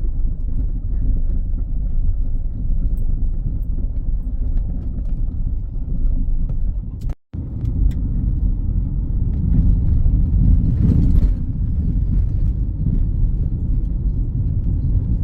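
Car driving: a steady low rumble of engine and road noise, broken once by a brief gap about seven seconds in.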